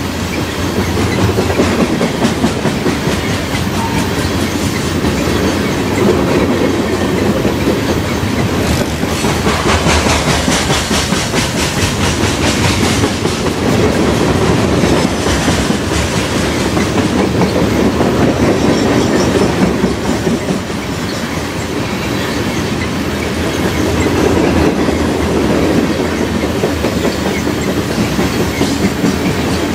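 Freight train rolling past close by, its steel wheels clattering over the rails in a steady, loud run of clicks.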